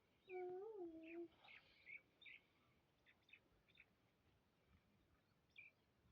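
Faint animal calls: one short wavering call about half a second in, then scattered short high chirps like small birds.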